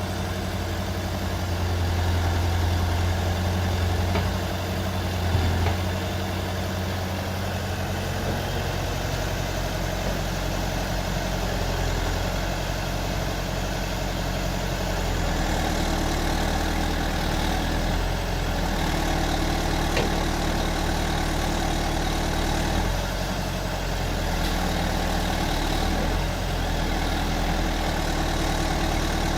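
Diesel engine of a JCB 4CX backhoe loader running steadily near idle, its note shifting slightly a few times.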